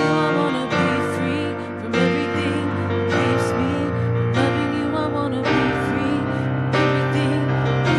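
Slow church worship music: sustained piano or keyboard chords changing about once a second, with wavering voices singing over them.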